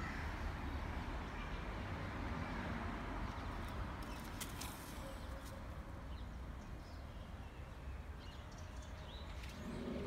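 Outdoor ambience: a steady low rumble, with faint bird calls and a few short high chirps about four to five seconds in.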